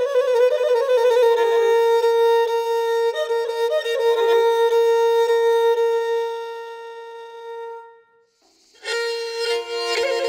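Pontic lyra (kemenche) played solo with the bow. An ornamented melodic phrase leads into a long held note that fades away. After a short gap about eight seconds in, a new phrase begins.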